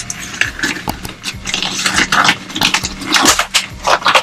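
Rubber gloves being pulled onto the hands, with a quick run of sharp snaps and rustling stretches of the rubber.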